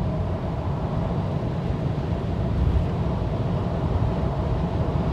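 Steady low rumble of a vehicle on the move, engine and road noise, with a faint steady hum above it.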